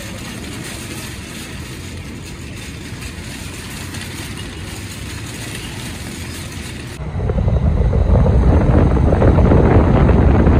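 A metal shopping cart rattling steadily as it is pushed across asphalt. About seven seconds in, this cuts suddenly to louder, low road and wind noise from a moving vehicle.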